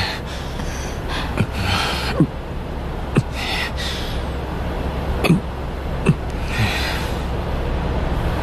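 A person breathing in strained gasps, several breaths in a row, with a few sharp light clicks among them over a steady low hum.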